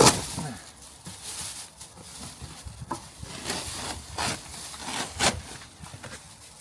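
Handling noise while unpacking: a sharp knock at the start, then scattered knocks and scraping, rubbing sounds.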